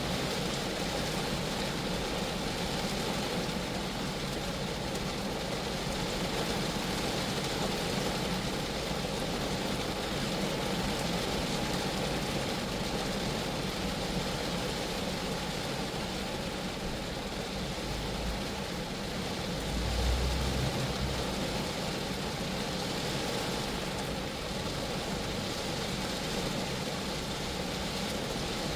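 Steady rain falling on a Geo Metro, an even patter and hiss throughout. About two-thirds of the way through, a brief low rumble swells and fades.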